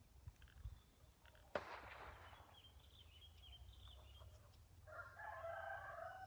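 A rooster crowing once, a long faint crow near the end. About one and a half seconds in there is a single sharp bang with a short rushing tail, and some brief high chirps follow it.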